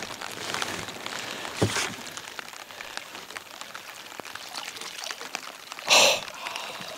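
Water sloshing and dripping as a mountain goat carcass is hauled through the lake against the side of a small boat, with light rain pattering on the water. There is a single knock about two seconds in and a louder splash near the end.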